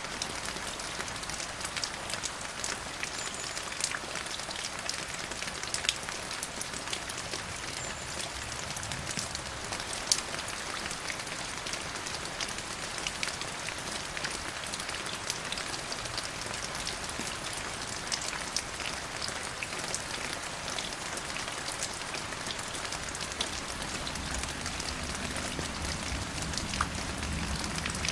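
Steady rainfall: an even hiss of rain with many separate drop ticks pattering on a hard surface, a few louder drops standing out. A faint low rumble comes in near the end.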